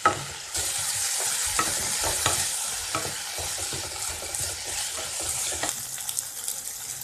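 Chopped onions and tomatoes sizzling in hot oil in a granite-coated nonstick wok, stirred with a spatula that scrapes and lightly knocks against the pan. The tomatoes are being sautéed until soft. The sizzle grows louder about half a second in.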